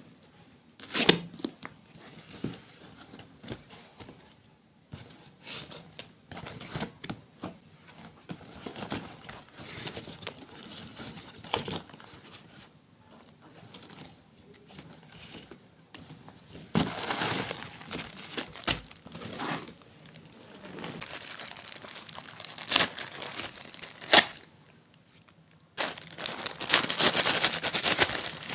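Plastic wrappers of soft-clay packets crinkling and tearing open, with sharp snaps and clicks scattered throughout and longer stretches of crinkling near the middle and the end.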